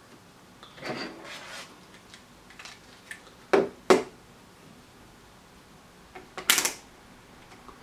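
Light handling sounds of multimeter test probes and a resistor on a workbench: a rustle about a second in, two sharp clicks close together near the middle, and a short cluster of taps near the end.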